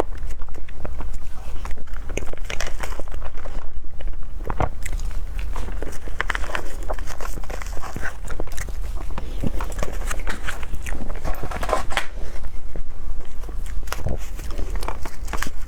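Close-miked eating: chewing and biting into a fruit dessert, with many small irregular clicks and crackles over a steady low hum.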